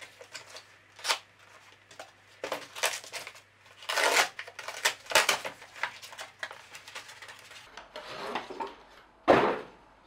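Cardboard shipping box being opened by hand: packing tape slit and torn, the flaps pulled back and the cardboard rustling and scraping in irregular bursts. The bursts are loudest about four seconds in and again near the end.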